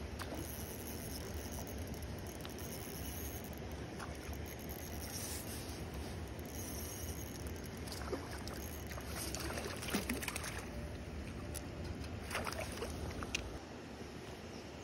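Water splashing and lapping over a steady low rumble, with scattered short clicks and taps, busiest in the second half.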